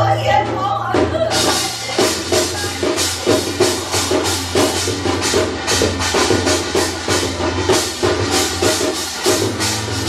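Korean shamanic ritual (gut) accompaniment: a percussion ensemble with the janggu hourglass drum plays a fast, steady rhythm, and the strokes turn brighter and denser about a second in.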